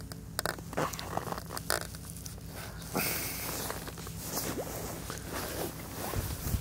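Footsteps and shuffling crunching on snow, with rustling of winter clothing: a run of irregular crunches and scrapes close to the microphone, thicker about three seconds in.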